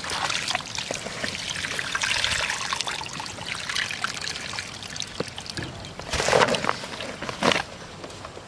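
Live freshly caught fish flapping and splashing in shallow water in a plastic tub, water spattering against its sides, with two louder bursts in the second half.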